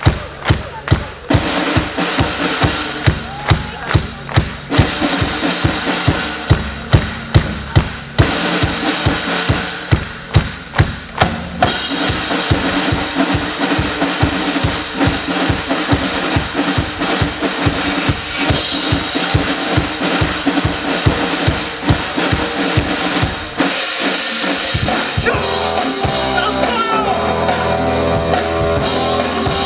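Live drum show: a line of marching drums struck in unison with sticks, heavy evenly spaced hits about two a second over a rock band's drum kit. About twelve seconds in the sound fills out into full band music, and after a short break near the end it goes over to rock music with guitar.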